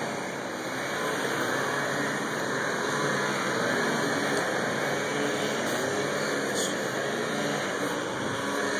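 Street traffic: a motor vehicle running on the road alongside, heard over a steady outdoor hiss.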